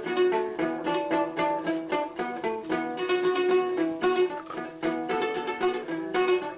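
Instrumental music led by a plucked string instrument, playing a quick, steady run of short notes.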